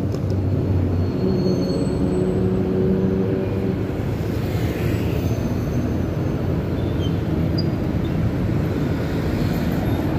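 Steady city traffic on a rain-wet road: cars, motorbikes and buses running past. A low engine hum stands out in the first second.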